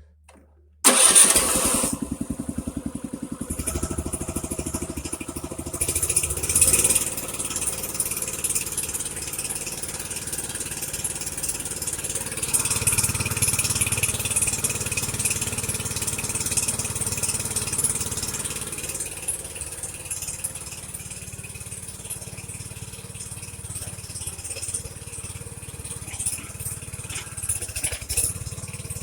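Small gasoline engine that drives the mini backhoe's hydraulic pump starting suddenly about a second in and then running steadily, a little louder for a few seconds in the middle.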